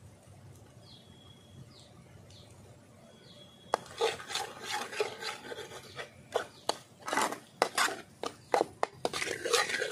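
Metal spatula scraping and clacking against an iron kadai as a dry, crumbly fish fry is stirred, starting a little over a third of the way in and going on in quick irregular strokes. Before that it is quiet apart from a few faint high chirps.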